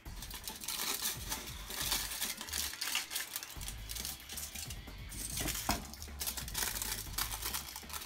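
A sheet of household aluminium foil crinkling and rustling as it is cut to size with scissors and handled: a dense, continuous run of crackles.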